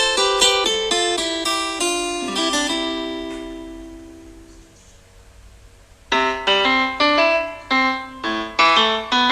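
Tecno phone stock ringtones: a melody of plucked notes fades out over the first few seconds, a short gap follows, then about six seconds in a new ringtone starts with a quick, rhythmic run of bright piano-like notes.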